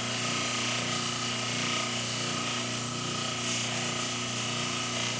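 Old double-arbor bench motor running a 3M Scotch-Brite wheel, with a steady hiss as a small forged steel hammer head is held against the wheel to polish it to a near-mirror finish. Under the hiss runs the motor's even hum.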